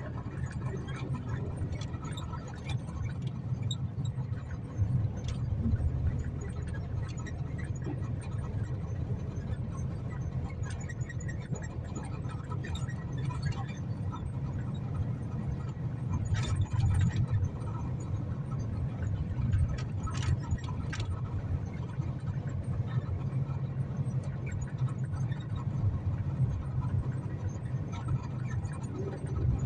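Strong storm wind gusting, buffeting the microphone with a steady low rumble, with scattered sharp rattles and clicks, a few of them louder around the middle.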